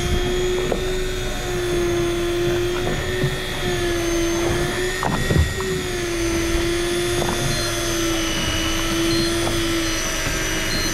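Electric fishing reel's motor whining steadily as it winds in a hooked fish, with a few light knocks along the way.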